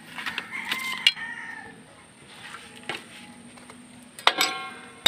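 Metal clicks and scrapes of a screwdriver working at a drum brake's shoe and handbrake cable fitting, with a sharp metallic clank that rings briefly a little after four seconds in. A rooster crows in the background about a second in.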